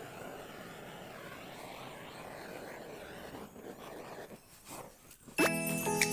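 Butane gas torch on a canister running with a steady hiss of flame. About five seconds in it cuts off and a bright music jingle with chime-like notes begins.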